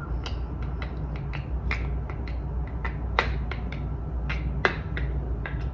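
A quick, irregular run of sharp light clicks or taps, about four a second, two of them louder, over a steady low hum.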